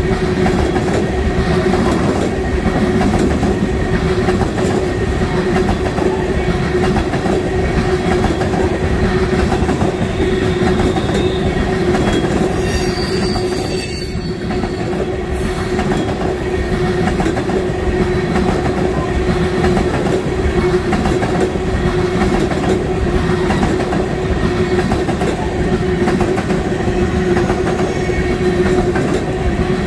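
Tank cars of a freight oil train rolling past close by: steel wheels on rail give a steady rumble with a constant ringing tone. A brief high hiss comes about halfway through.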